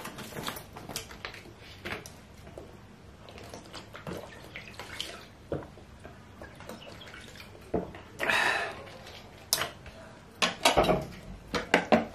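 Close-miked eating and drinking sounds: chewing and wet mouth sounds over bakso meatballs, then drinking from a plastic water bottle. Near the end come several sharp clinks and scrapes as a spoon cuts a meatball on a plate.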